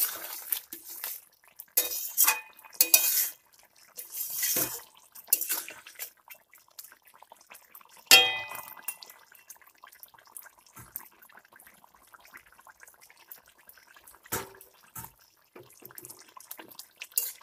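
Metal spatula stirring and scraping through a thick fish and potato curry in an aluminium pot, with a sharp ringing clank of metal on the pot about eight seconds in. After that the curry simmers with a faint crackle and an occasional light knock of the spatula.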